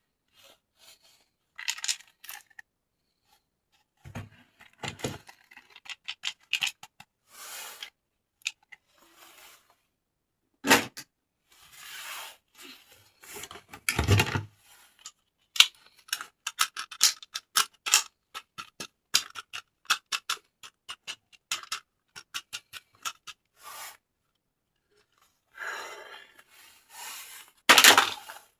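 Toy packaging being opened and handled: irregular clicking, scraping and tearing of plastic and cardboard, with a few louder knocks.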